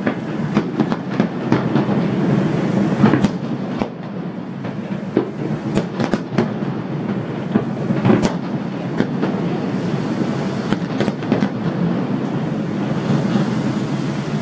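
Aerial fireworks going off: an irregular string of sharp bangs and crackles, the loudest about three and eight seconds in, over a continuous rolling rumble of distant bursts.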